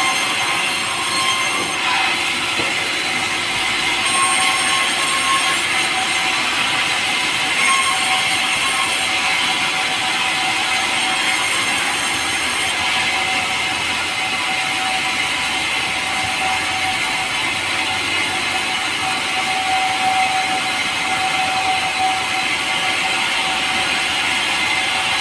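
A power saw running steadily as it cuts through a pulai log, a light, soft timber. A continuous hiss carries steady whining tones.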